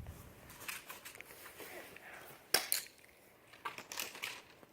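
Scattered rustling with several sharp clicks and knocks, loudest about two and a half seconds in and again near four seconds.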